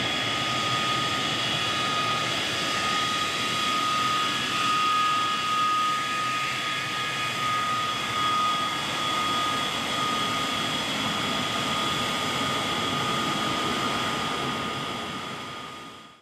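MiG-23 fighter's jet engine running on the ground: a steady roar with a high, held turbine whine. The sound fades out near the end.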